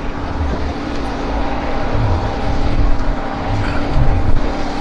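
Steady engine drone with a constant hum, and uneven low rumble from wind on the microphone.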